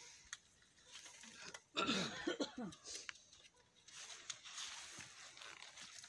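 A brief human vocal sound about two seconds in, against a quiet background with faint scattered clicks.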